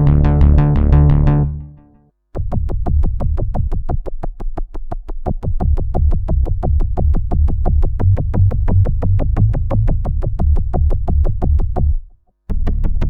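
Waldorf Microwave wavetable synthesizer playing demo patches: a held sound fades out about two seconds in, then after a short pause a fast sequenced pattern of short notes, about four or five a second, over a low bass. It stops briefly near the end and the same pattern starts again.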